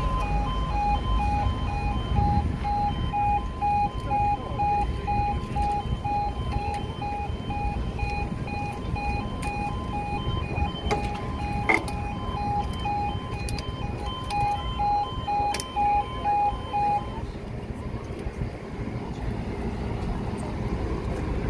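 A level crossing's electronic warning alarm sounding as evenly pulsed beeps on two steady tones while the barriers lower. It stops about seventeen seconds in, and there is one sharp click about halfway through.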